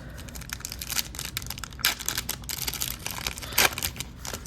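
Crinkling and tearing of a foil wrapper on a hockey card pack being opened, in a run of irregular crackles and rustles.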